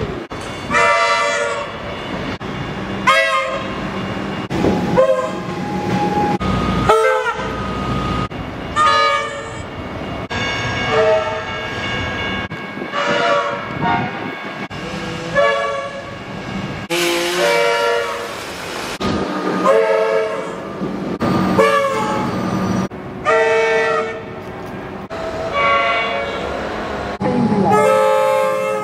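Comeng electric suburban trains sounding their horns: a dozen or more short chord-like blasts, about one every two seconds, spliced back to back from different recordings with abrupt cuts between them, over a steady low hum.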